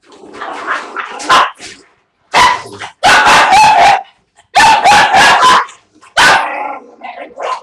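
A puppy barking loudly in quick runs of several barks a second.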